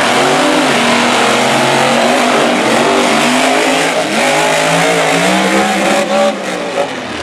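Two monster trucks racing side by side, their big engines revving hard, pitch rising and falling through the run, with brief drops in loudness near the end as the trucks go airborne over a jump.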